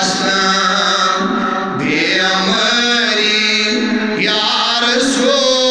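A man chanting a Kashmiri naat, a devotional poem in praise of the Prophet, solo into a microphone. He sings in long melodic phrases that slide in pitch, with new phrases beginning about two and four seconds in.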